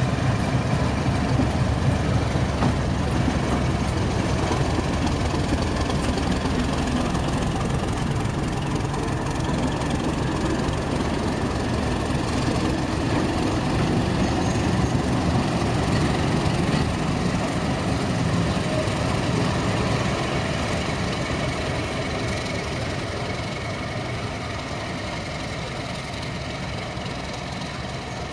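BR Class 31 diesel-electric locomotive's English Electric V12 diesel engine running steadily as the locomotive passes close by. It grows fainter over the last several seconds as the locomotive draws away.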